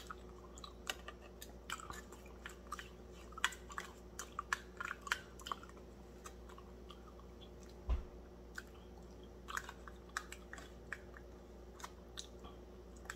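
Quiet eating sounds: a plastic spoon clicking and scraping in a small plastic cup, with soft mouth and chewing noises. A single low thump about eight seconds in.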